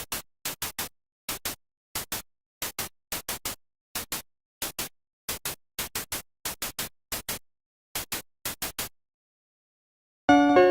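A rapid, uneven string of short static-like noise bursts, mostly in pairs and threes with dead silence between, stopping about nine seconds in. Near the end, loud plucked-string music starts.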